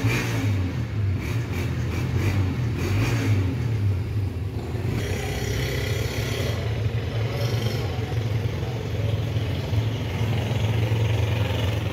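A motor vehicle engine running close by, a steady low drone, over general street noise.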